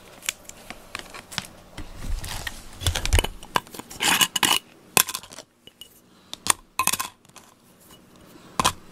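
A run of sharp clicks and light clinks of a glass jar and its metal screw lid being handled as combed-out cat hair is packed into the jar, with several louder clinks about four to five seconds in.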